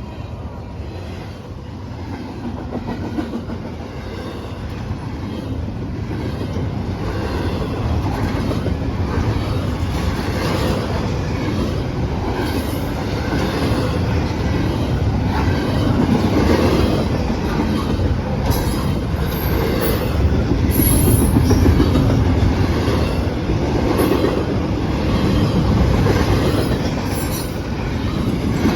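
CSX intermodal freight train rolling past, its wheels clattering over the rails with some wheel squeal. It grows louder through the first half and stays loud.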